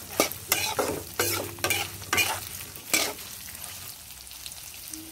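Metal spatula scraping and turning diced boiled chicken with garlic and ginger in hot oil in a karahi, with the oil sizzling as the meat is fried dry. About six scraping strokes come in the first three seconds, then the sizzle goes on alone, quieter.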